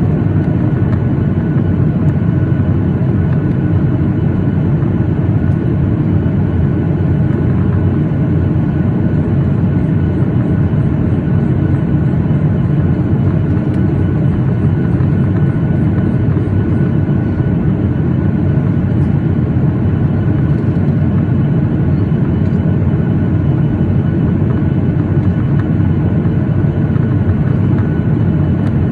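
Steady jet airliner cabin noise inside a Boeing 737-8: a constant low rumble from the CFM LEAP-1B engines and the airflow over the fuselage, with a few faint steady tones above it.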